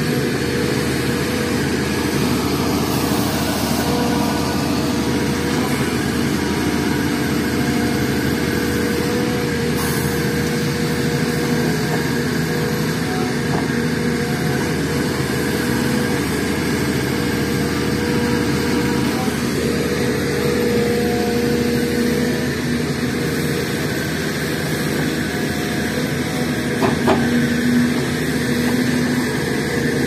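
SDLG crawler excavator's diesel engine running steadily under load as it digs soil and loads it into a dump truck, its note shifting a little as the hydraulics work. A short knock near the end.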